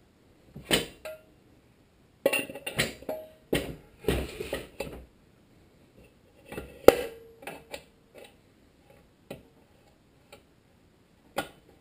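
Irregular metal clinks and knocks of a crankshaft and connecting rod being handled and worked into a Tecumseh HSK70 engine block, with a short rough scraping patch midway and one sharper clank about seven seconds in that rings briefly.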